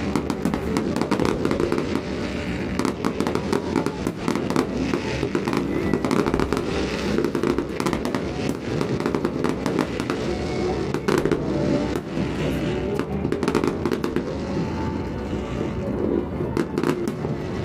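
Fireworks crackling and popping without a break, a dense run of rapid small bangs.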